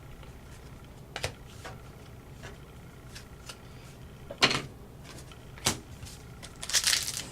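Trading cards being handled on a table: scattered light taps and clicks, with two sharper knocks around the middle. Near the end a foil card-pack wrapper starts crinkling as the next pack is opened.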